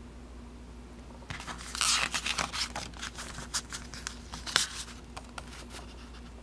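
Paper pages of a stapled instruction booklet being turned and pressed flat by hand: a run of crinkling rustles starting about a second in, loudest around two seconds and again around four and a half, dying away near six seconds.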